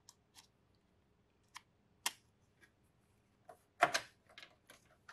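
A series of sharp plastic and metal clicks as a CompactFlash card is fitted to an XT-IDE adapter card and the card is pushed into an ISA expansion slot of a Tandy 1000. The loudest knock, with a quick cluster of clicks, comes about four seconds in as the card seats in the slot.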